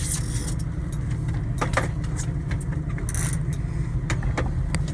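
Steady low rumble of the boat's motor running, with scattered clicks and knocks of gear being handled and a brief splash about three seconds in as a salmon thrashes in the landing net.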